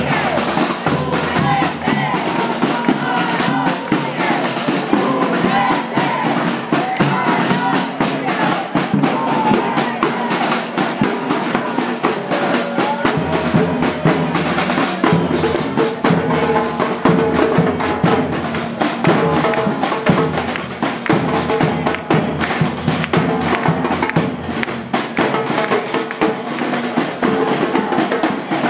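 A marching street drum band playing a steady, loud rhythm on slung drums, with the voices of a crowd mixed in.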